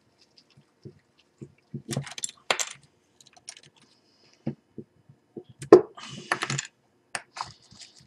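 Small plastic SATA power connectors clicking and clattering as they are pulled off a cable and set down on a desk: scattered light clicks, with the sharpest click a little under six seconds in and a short clatter right after it.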